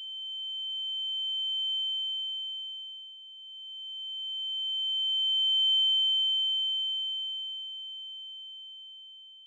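A steady, high-pitched pure tone that swells louder twice and then fades: an ear-ringing (tinnitus) sound effect laid over the crash aftermath.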